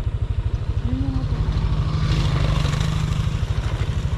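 Motorcycle engine running at low speed, heard close up from the bike itself, with an even pulsing exhaust beat. About halfway through, the engine note firms up and a stretch of louder hiss comes in for a second or so, then eases off.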